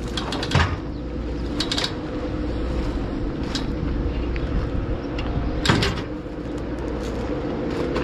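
An engine running steadily while a grain auger is moved into position, with a few sharp metal clanks and knocks; the loudest comes about six seconds in.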